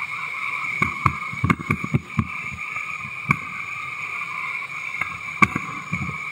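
Steady rushing of whitewater around an inflatable raft running a rapid, cut by a string of knocks and thumps, a quick burst of them a second or two in and a few more later.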